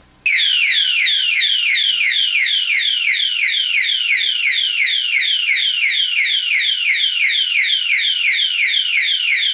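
Anti-theft alarm padlock's built-in electronic siren going off at full volume, set off by the lock being touched again while armed after its pre-warning beep. A loud, high-pitched wail of quickly repeating falling sweeps, about four a second, switching on abruptly just after the start.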